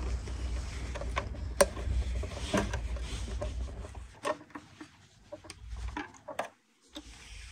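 Scattered light clicks and taps with some rubbing from handling, over a low rumble that stops about four seconds in.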